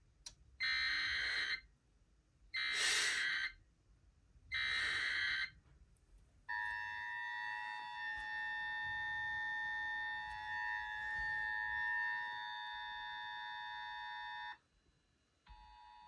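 Emergency Alert System alert tones for a severe thunderstorm warning: three one-second bursts of SAME digital header data, then the two-tone EAS attention signal held for about eight seconds. After a short break the attention tone starts again, quieter, near the end, as the Sage ENDEC's on-air relay of the alert begins.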